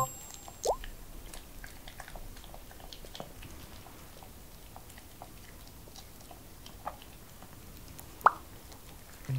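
Quiet room with faint wet clicks of Pomeranians licking their lips and chewing. Two short rising squeaks come about a second in and near the end, the second one sharper.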